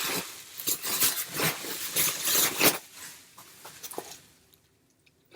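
Plastic packaging around a CD album rustling and crinkling as it is unwrapped by hand, in quick scratchy strokes that thin out after about three seconds.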